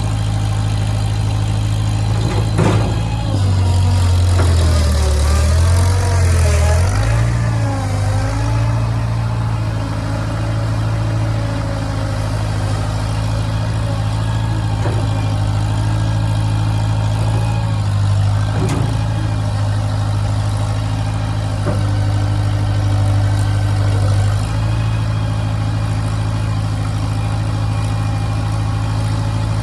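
An engine running steadily. Its pitch dips and wavers for several seconds a couple of seconds in, then settles back to a steady run, with a few light knocks.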